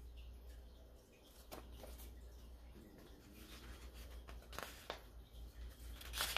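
Paper pages of a large picture book being handled and turned: a few brief rustles and flaps, the loudest near the end, over a low steady hum.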